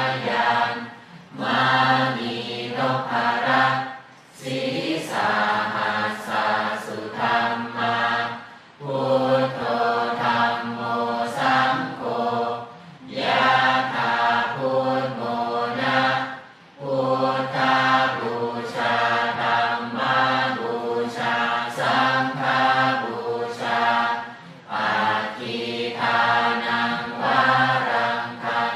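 A large group of people chanting Buddhist verses in unison, in phrases of a few seconds each with short breaks for breath between them.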